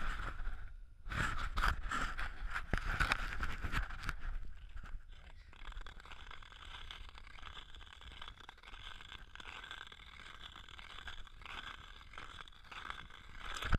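Ice skate blades scraping and crunching over rough ice on pavement, stride after stride. About five seconds in, this settles into a quieter, steadier gliding hiss.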